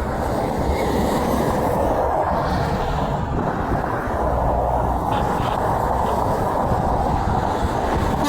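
Steady rush of interstate traffic: semi trucks passing at highway speed, a loud, even tyre-and-engine noise with no horn sounding.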